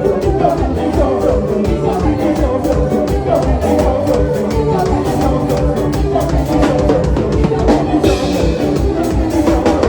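Live band playing upbeat dance music with a steady drum-kit beat and pitched instruments, with some singing.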